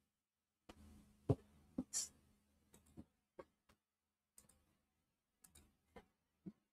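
Faint computer mouse and keyboard clicks: about a dozen separate sharp clicks at irregular intervals, with the loudest a little over a second in.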